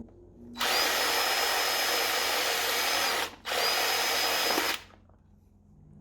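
Power drill running in two spells, drilling out a rivet: a run of about two and a half seconds with a steady high whine, a brief stop, then another second and a half.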